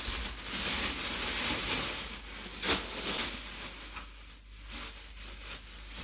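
Plastic packaging crinkling and rustling as bags of dried food are handled, with a sharp crackle about two and a half seconds in.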